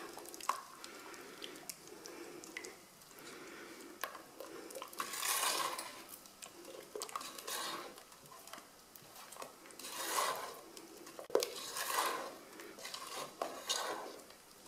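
Silicone spatula stirring gelatin into hot sugar syrup in a non-stick saucepan to dissolve it, scraping and swishing around the pan. Several strokes swell louder, with a few light knocks of the spatula against the pan.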